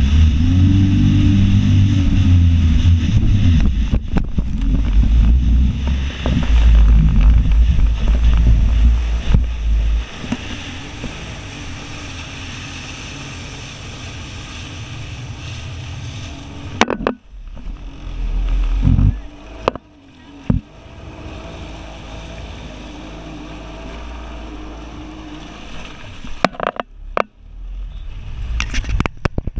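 Jet ski engine running at speed with water and wind rushing past, loud for the first ten seconds and quieter after that, with a few sharp knocks and splashes as the hull meets the waves.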